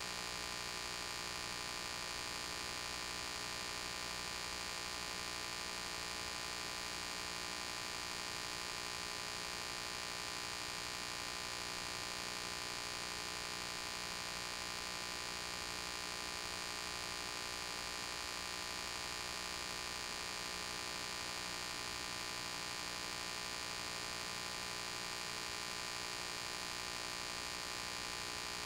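Steady electrical hum with hiss, unchanging throughout, with no game or crowd sound in it.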